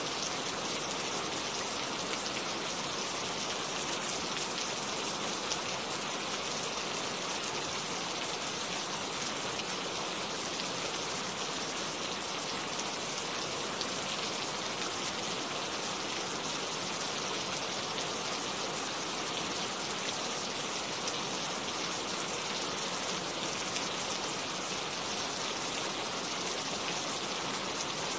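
Steady rain falling: an even, unbroken hiss of many drops, with no thunder.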